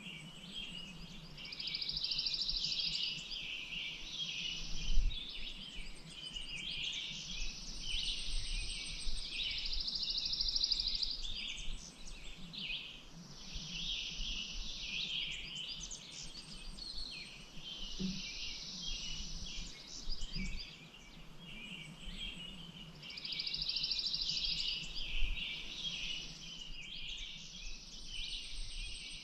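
Songbirds singing, a dense chorus of chirps with one bird repeating a high, rapid trill lasting two to three seconds every few seconds.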